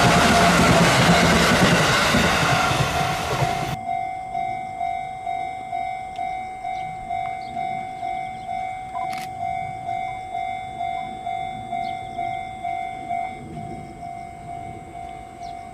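An electric commuter train running past, its rumble fading and falling away about four seconds in. Then a level-crossing alarm bell dinging steadily, a little under two dings a second, with one sharp click near the middle.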